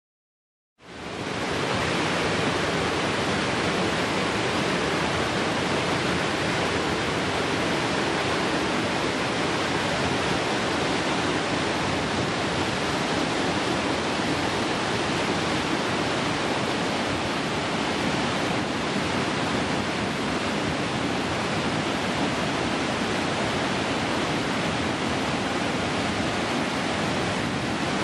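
Rocky Falls, white water cascading down stepped rock ledges: a steady, even rush of falling and splashing water that fades in quickly about a second in.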